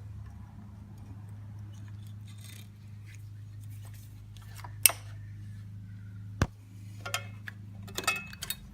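Small metal clicks and clinks of a spring and linkage rod being worked loose by hand from a riding mower's carburetor and governor linkage, over a steady low hum. A sharp click comes about five seconds in, another about six and a half seconds in, then a run of small clicks near the end.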